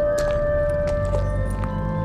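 Slow film-score music: a single held note drops a step about a second in, over steady higher tones and a low rumble.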